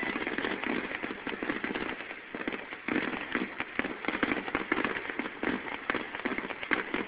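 Fireworks crackling: a dense, continuous spatter of rapid small pops, with louder flurries every second or two.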